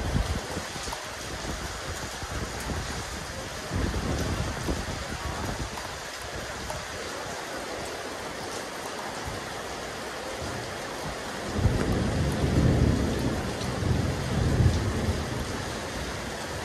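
Steady rain falling on a rooftop terrace: an even, dense hiss of drops. A low rumble swells about four seconds in and again, louder, from about twelve to fifteen seconds in.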